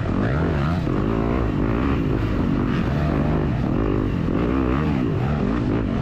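Yamaha YZ250FX dirt bike's 250 cc four-stroke single-cylinder engine under race throttle, its pitch rising and falling again and again as the rider opens and closes the throttle.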